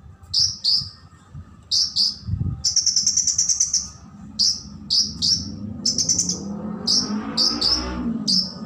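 Sunbird (kolibri) singing in a run of short, sharp, high chirps, with a fast rattling trill about three seconds in. A lower wavering sound builds underneath in the last two seconds.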